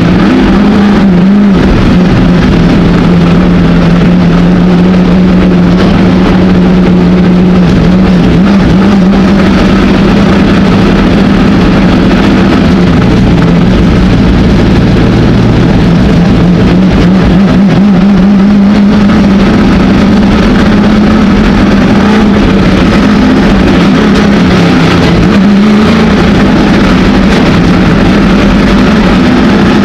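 ARCA stock car's V8 engine running very loud, heard from inside the cockpit as the car pulls away from the pits and out onto the track. The pitch holds mostly steady, with a few brief rises as the throttle opens.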